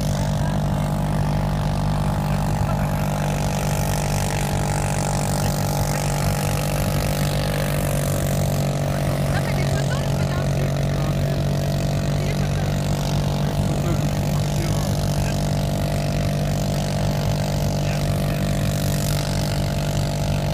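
Snowmobile engine running at a steady, unchanging pitch while towing a loaded inflatable boat uphill over snow.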